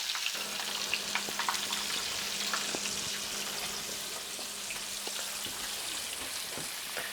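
Breaded walleye pieces deep-frying in hot oil: a steady sizzle with scattered small crackles.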